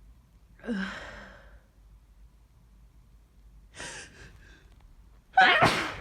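A person with a cold sighing with a short, breathy voiced exhale, then a quick breath in about four seconds in, then a loud sneeze near the end.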